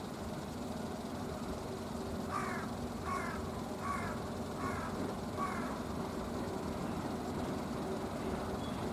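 A crow caws five times in an even series, about one call every 0.8 s, over a steady low rumble.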